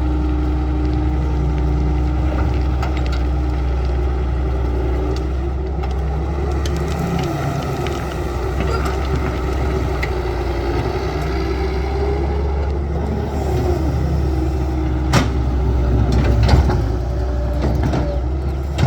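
Doosan DX140 excavator's diesel engine running steadily, its pitch sagging and rising a little as the machine takes load. Two sharp knocks come near the end.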